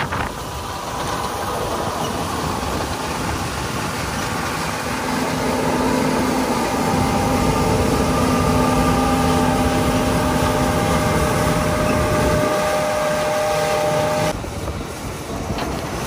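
John Deere combine harvester running while it cuts soybeans with its draper header: a steady machinery drone with a few held tones, a little quieter for the last couple of seconds.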